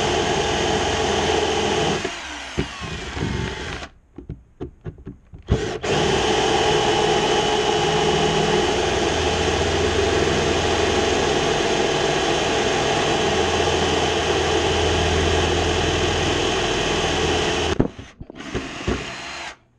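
Power drill boring a hole into a wooden bench top, the bit cutting wood steadily. It eases off and stops briefly with a few knocks about four seconds in, then runs steadily again for about twelve seconds before stopping near the end.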